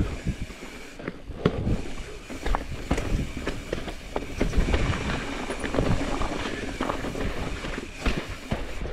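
Mountain bike rattling down a rocky technical trail: a constant rumble of tyres on rock broken by many irregular sharp clicks and knocks from the chain and frame.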